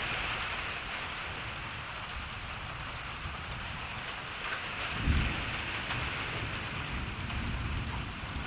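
Steady rain hissing, with a roll of thunder about five seconds in that rumbles on for two or three seconds.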